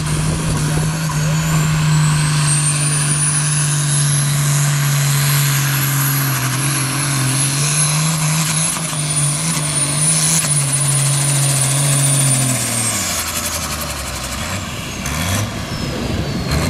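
Modified International pulling tractor's diesel engine running flat out under load as it drags the weight sled, with a high turbo whistle over it. About 13 seconds in, the engine drops off at the end of the pull and the whistle winds down.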